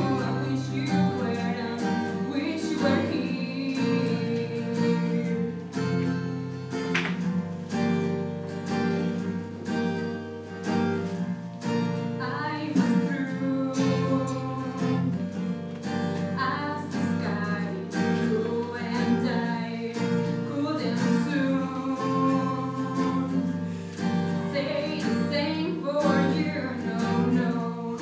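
A young woman singing solo to her own acoustic guitar accompaniment, the guitar strummed and picked in a steady rhythm under the voice.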